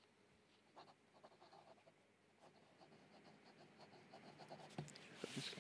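Faint scratching of a pen on paper as a signature is written, in short scattered strokes. A brief soft hiss of rustling comes near the end.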